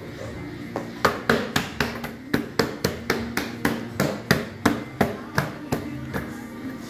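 Rapid hammering: about twenty quick, even strikes, roughly four a second, starting about a second in and stopping shortly before the end.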